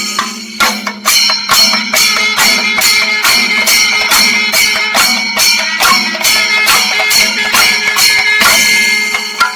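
Singari melam: chenda drums and ilathalam cymbals playing together in a loud, steady pulse of about two and a half strong strokes a second over a continuous ringing shimmer, the strokes falling away near the end.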